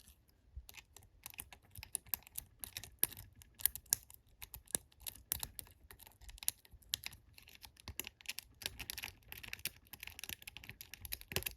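Metal lock pick working the pins of a small cross cabinet lock: rapid, irregular light clicks and scrapes as the pins are pushed down and set one by one.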